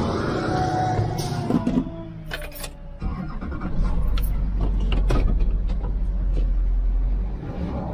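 Pickup truck being started: a few clicks and a jingle of keys, then the engine starts about three seconds in and settles into an idle with a steady low rumble.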